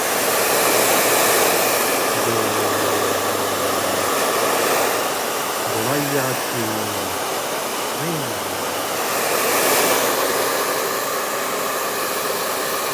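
Handheld hair dryer blowing steadily, its sound swelling and fading as it is moved about. A few short low pitched sounds come through it about six and eight seconds in.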